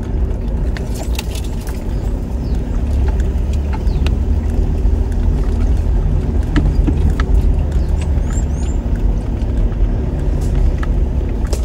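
Toyota Hilux driving along a rough dirt track, heard from inside the cab: a steady low rumble of engine and tyres, with scattered short rattles and knocks as the truck bumps over the track.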